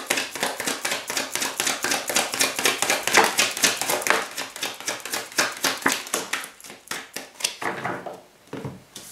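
Deck of cards shuffled by hand in quick flicking strokes, a fast run of papery clicks several times a second. Near the end it slows to a few separate flicks as cards are drawn and laid down.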